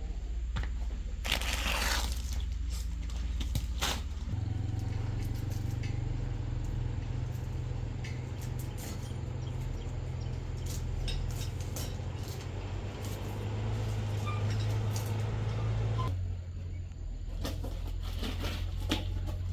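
A low, steady machine hum whose pitch steps up about four seconds in and drops again near sixteen seconds, with scattered clicks and knocks over it.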